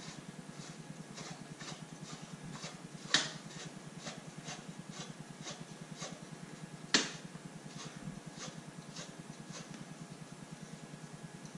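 ABBA motorcycle lift stand being tightened at the swingarm peg: light metallic clicks about two a second, with two sharper metal clicks about three and seven seconds in. A low steady hum runs underneath.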